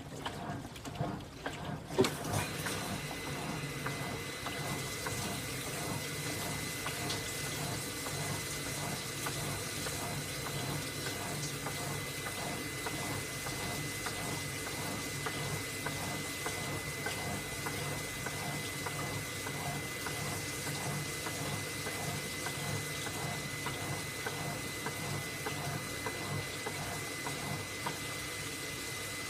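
AQUA MCW-C50 coin-operated washing machine in its fill rinse, water running into the tub in a steady flow with a thin high whine and a faint regular pulsing, after a click about two seconds in.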